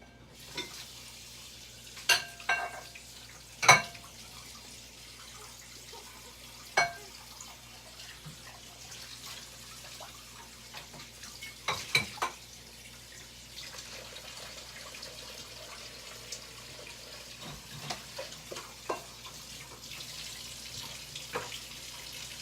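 Dishes being washed up at a sink: a handful of sharp, ringing clinks of crockery and utensils knocking together at irregular intervals over a steady hiss.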